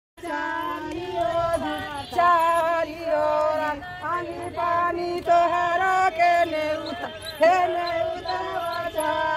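A woman's voice singing a traditional wedding song in long held notes that bend at their ends, phrase after phrase.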